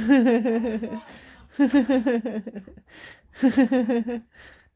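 A woman laughing in three bursts, each a wavering run of laughs.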